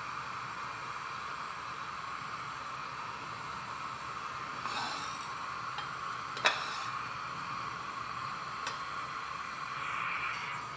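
Gas stove burner hissing steadily under a wok as its oil heats, with one sharp click about six and a half seconds in.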